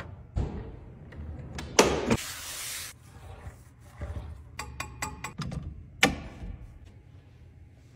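Hands tapping, rubbing and clicking on a classic Mercedes-Benz 300 SL's chrome trim, bodywork and steering wheel, in short sharp clicks and knocks. There is a louder knock with a brief hiss about two seconds in, a quick run of clicks around five seconds in, and a sharp click about six seconds in.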